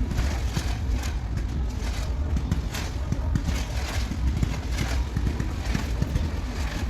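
Fireworks crackling and popping, many quick irregular cracks a second, over a steady low rumble.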